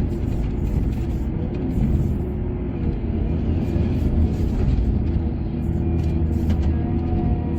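Heavy diesel engine of mining machinery, an excavator or haul truck, running with a steady low rumble.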